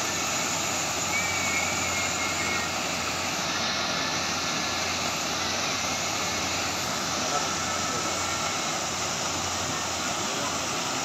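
Steady rushing noise of a dredge discharge pipe blasting sand-and-water slurry high into the air, with a low steady hum underneath.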